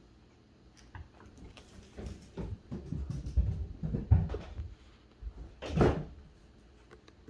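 Irregular soft thumps, scrapes and knocks of cats tussling with a stuffed fish toy on a wooden floor. They build through the middle, and one louder knock comes near the end.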